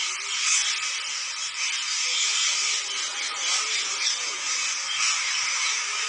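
A huge flock of green parakeets calling all at once, a dense, steady din of high, shrill chatter.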